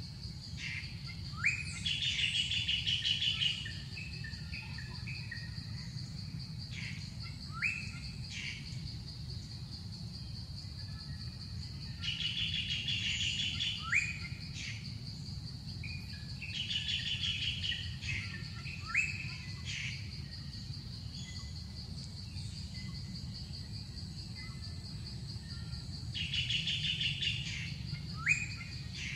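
Wild birds calling in short trilled phrases and quick rising chirps every few seconds, over a steady high-pitched insect drone.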